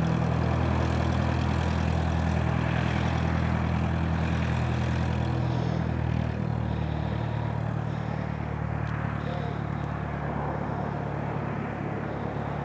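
Cessna 172 Skyhawk's piston engine and propeller running at low taxi power, a steady low drone. It fades slowly through the second half as the plane taxis away.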